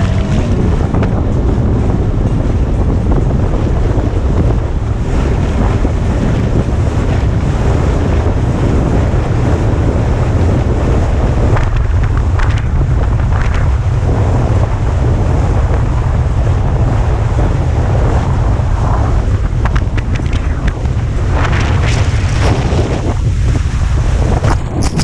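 Heavy wind buffeting on the microphone with rushing water and spray from a speedboat running fast over choppy sea, and splashes of spray now and then.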